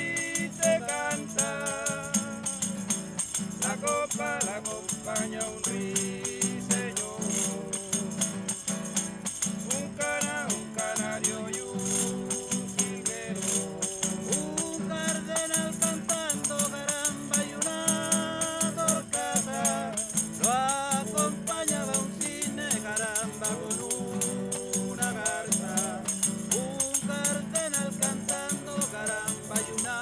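Cueca music played on a nylon-string classical guitar, strummed, with a small hand-held wooden percussion box shaken and tapped as a rattle. A sung melody runs over it at times.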